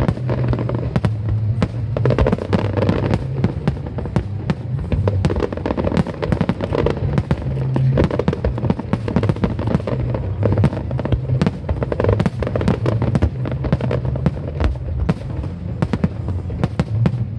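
Aerial fireworks bursting in a dense, rapid stream of bangs and crackles, with music playing underneath on a steady bass line.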